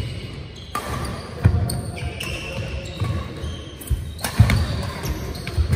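Badminton doubles rally on a wooden indoor court: several sharp racket strikes on the shuttlecock, a second or more apart, mixed with the players' footfalls thudding on the floor.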